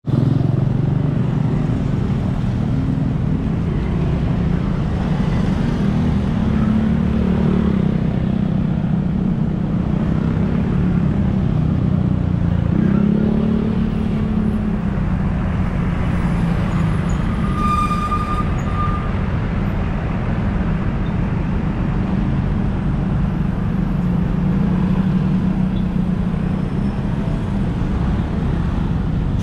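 Street traffic of motorbikes passing: a steady engine rumble, with one engine revving up about halfway through and a short high beep a few seconds later.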